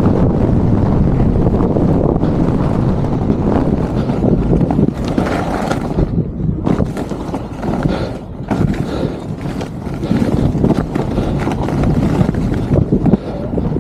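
Wind rushing over the microphone and skis scraping and hissing over packed, chopped-up snow on a fast downhill ski run, with brief dips about six and eight seconds in.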